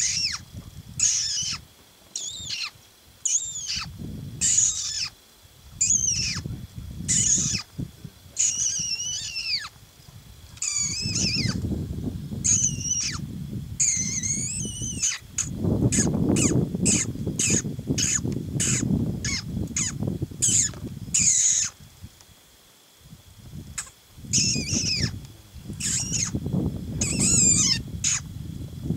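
A night bird calling over and over in short, high, arching notes, about one to two a second and quicker partway through, over bursts of low rumbling noise.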